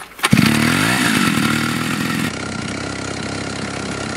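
Small two-stroke chainsaw engine of a homemade snowmobile running loudly, revving with its pitch dipping and rising again in the first couple of seconds, then running at a steadier speed.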